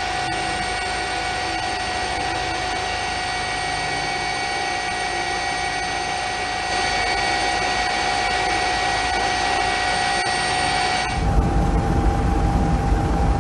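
Steady helicopter engine and rotor noise with a constant high turbine whine. It gets louder with a heavy low rumble after a cut about eleven seconds in.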